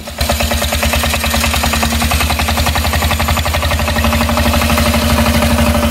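Diesel engine of a custom motorcycle running at a steady idle, with a fast, even clatter of pulses. It comes in suddenly just after the start.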